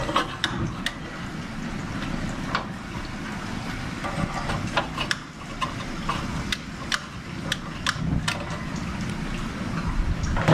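Gas grill being lit and brought up to heat: a steady low rush from the burners, with scattered sharp clicks throughout.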